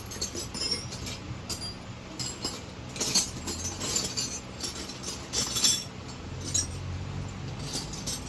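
Metal hand tools clinking and clattering as they are rummaged through and handled, a string of irregular sharp clinks.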